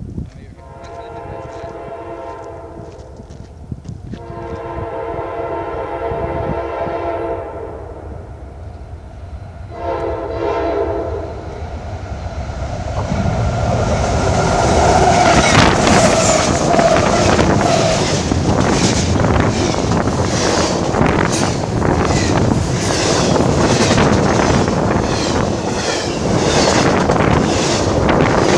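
Diesel locomotive horn sounding two long blasts and a shorter one as the train approaches. Then the train passes close by, its wheels clacking over the rail joints and growing louder.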